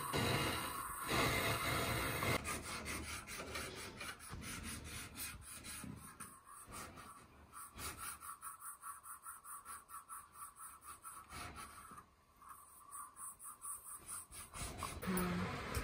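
Repair work on a refrigerator's copper refrigerant pipework during a gas recharge: a steady hiss at first, likely from a small brazing torch, then fast, regular scraping strokes, about four a second, with a short break about twelve seconds in.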